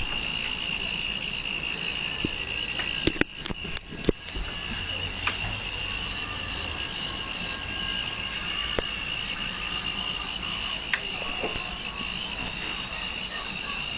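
Insects chirring in a steady, high-pitched chorus, with a few sharp clicks about three to four seconds in.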